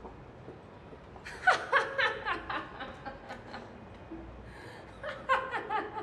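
A woman laughing in two bouts, each a quick run of short 'ha' sounds that slide down in pitch; the first starts about a second in, the second near the end.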